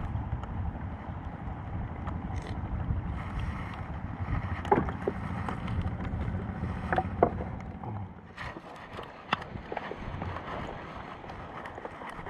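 Wind rumbling on the microphone aboard a small boat on the water, with scattered light knocks and clicks. The rumble drops off about eight seconds in.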